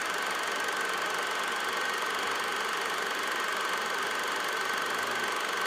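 Film projector running: a steady, unbroken mechanical whir and hiss with a thin high whine, part of the old-film effect laid under the end titles.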